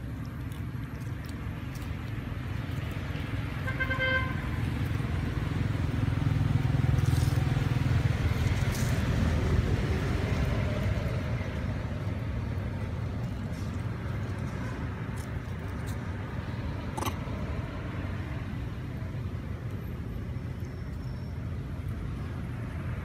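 A motor vehicle passing, its low engine and road rumble swelling to a peak about seven seconds in and then fading. A short horn toot sounds about four seconds in.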